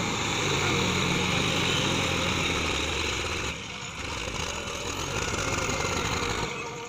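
John Deere tractor's diesel engine running under working load. The engine note holds steady for about three and a half seconds, eases briefly, then picks up again before easing near the end.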